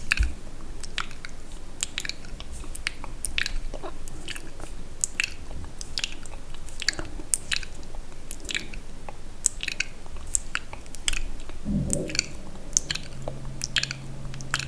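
Close-miked ASMR mouth sounds: irregular sticky, wet clicks and smacks of lips and tongue, a few each second.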